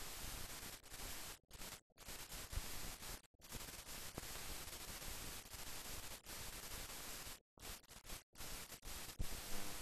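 Steady hiss from an old film soundtrack transfer with no other sound in it, cutting out completely for a moment several times, with a few faint clicks.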